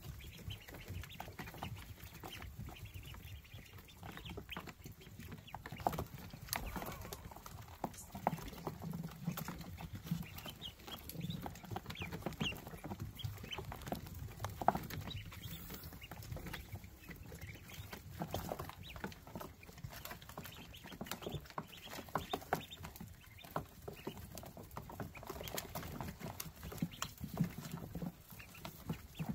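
Ducklings peeping over and over in short, overlapping calls, with scratchy rustling and pattering from the brood moving about.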